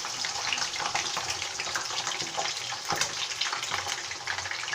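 Chicken pieces frying in hot oil in a frying pan on high heat: a steady sizzle with many small pops.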